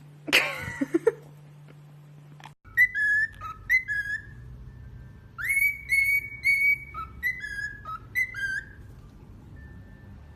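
A pet parrot whistling: short notes that swoop up and slide around one pitch, given in quick runs with brief pauses. Just before, about half a second in, there is a brief harsh noise.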